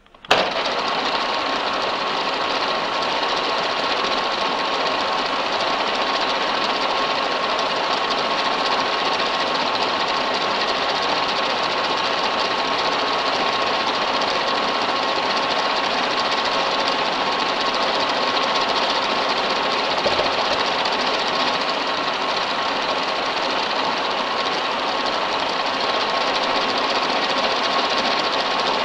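Universal milling machine running with a small end mill cutting a recess for a fastener into a metal part clamped in the vise. It starts abruptly a moment in and then runs as a loud, steady mechanical noise with a constant whine.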